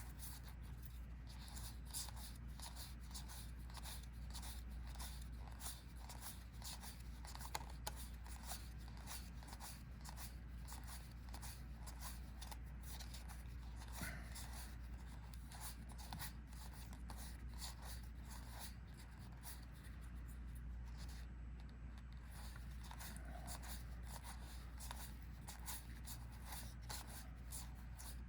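Collectible trading cards being handled and laid down one by one, a steady run of soft clicks and flicks, over a low steady hum.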